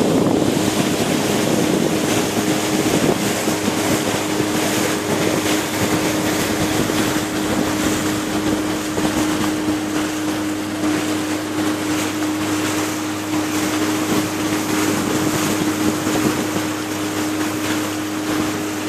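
Boat engine running steadily, a constant hum at one unchanging pitch, with wind noise on the microphone.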